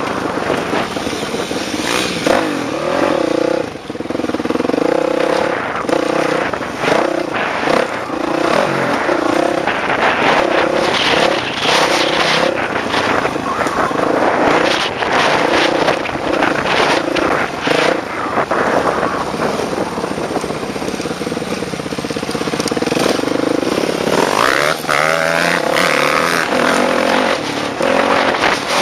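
Off-road motorcycle engine revving up and down as it is ridden hard over a rough dirt track, heard close up from the bike itself, with frequent knocks and rattles from the ground.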